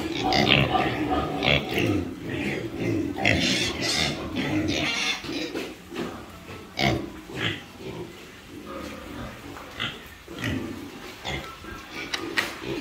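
A pen of young Large White and crossbred piglets grunting, a busy overlapping chorus for about the first five seconds, then sparser single grunts.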